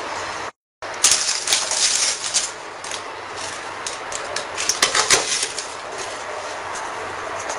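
Knife cutting ladyfinger biscuits on a plastic cutting board: a run of sharp clicks and taps, thickest about one to two seconds in and again near five seconds, over a steady background hiss.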